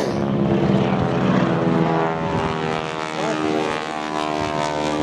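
A propeller-driven biplane flying over, its piston engine giving a steady note with many overtones.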